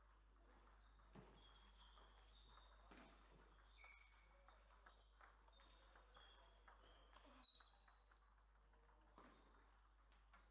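Near silence, with faint, scattered clicks of a table tennis ball at irregular intervals and a few short, high squeaks, over a low steady hum.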